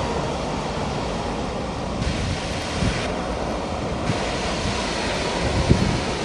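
Steady jet engine noise from an airliner, a Boeing 767 on the runway, mixed with wind on the microphone.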